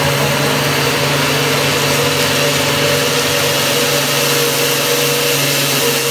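Personal blender running steadily, its cup held pressed down on the motor base, blending a protein shake with a frozen banana.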